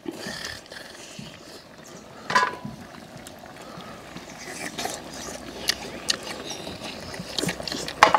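Eating at a shared pan of pork back-bone stew: chewing and scattered clicks of chopsticks and tongs against the metal pan and bowls, with one louder ringing metal clink about two seconds in.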